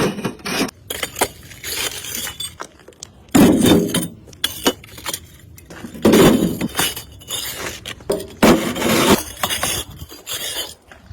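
Bricks clinking and clattering against one another as a hand brick gripper picks them up, in repeated hard knocks with louder clusters of clatter.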